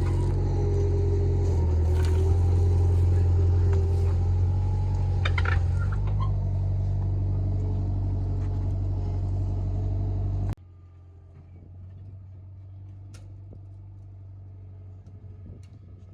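A vehicle or machine engine running steadily with a low, even hum. It stops abruptly about ten seconds in, leaving a much quieter background with a few faint clicks.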